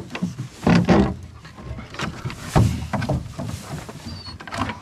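Dogs jumping into a wooden farm trailer and moving about, their paws thudding and scraping on the plank bed and sides. There are several dull knocks, the loudest about a second in and again about two and a half seconds in, with scuffling between.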